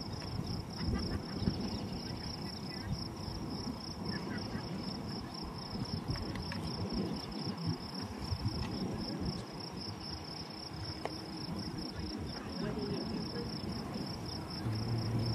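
A steady, high-pitched insect trill, finely pulsing and unbroken, over an uneven low rumble on the microphone.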